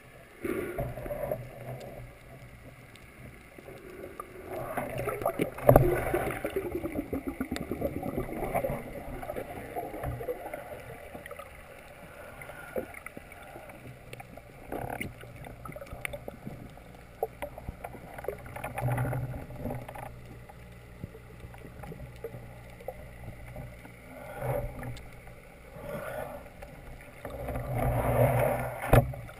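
Underwater sound heard through a camera housing: a muffled, steady water murmur with scattered clicks and knocks, swelling louder a few times, most strongly about six seconds in and again near the end.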